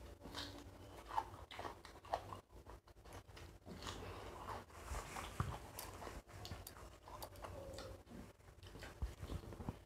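Two people eating biryani by hand: faint chewing and mouth sounds with scattered small clicks and rustles of fingers working rice and meat on glass plates.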